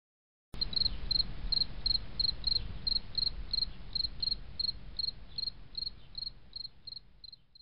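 Cricket chirping steadily, about three chirps a second, over a low rumbling hiss; it starts about half a second in and fades away near the end.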